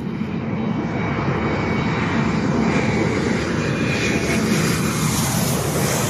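Jet airliner's engines on a low final approach to land: a steady rushing roar that grows louder as the plane nears, with a faint high whine.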